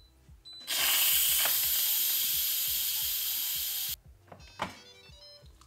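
Instant Pot Duo pressure cooker's steam release valve venting in a loud, steady hiss for about three seconds, cut off abruptly: pressure being let out after a pressure-cook cycle so the lid can be opened.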